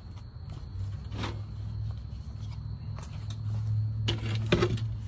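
Plastic car front grille being pulled off, its top retaining tabs broken: a few quick clicks and scrapes near the end, over a steady low hum.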